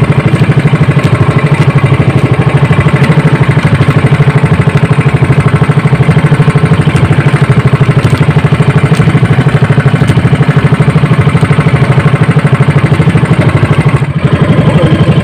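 Small outrigger fishing boat's engine running steadily, close by, with a fast, even chugging beat. It drops out for a moment about fourteen seconds in, then carries on.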